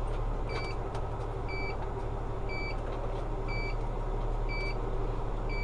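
Vehicle engine running steadily at crawling speed, with a short high electronic beep repeating about once a second.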